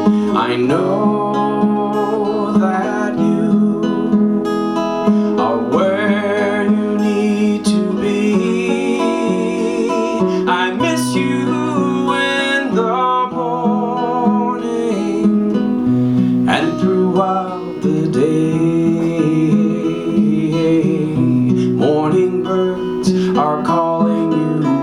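Acoustic guitar in an instrumental break of a folk song, strumming chords with a wavering melody line carried over them.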